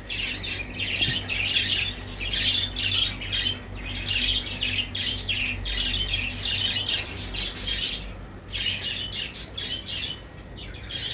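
Many caged birds calling together in a rapid, continuous chatter of short high calls, with a brief lull about eight seconds in.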